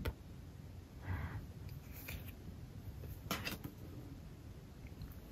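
Faint handling of paper photocards on a desk: a soft brush about a second in, then a sharp little tap as a card is set down about three seconds in.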